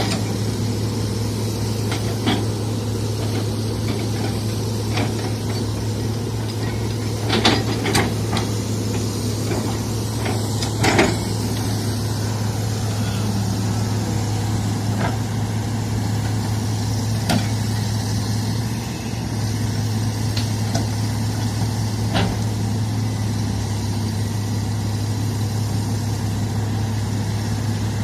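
Heavy diesel engine of construction machinery running steadily at low revs, with a few sharp metallic clanks about a third of the way in.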